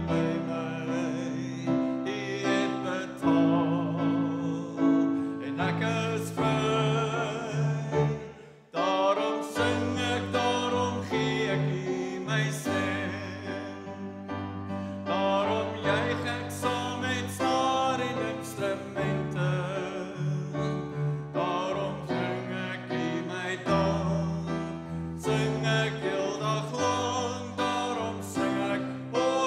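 A worship song sung in Afrikaans with instrumental accompaniment: voices over sustained chords and bass notes. There is a brief pause about eight and a half seconds in, as verse two gives way to the refrain.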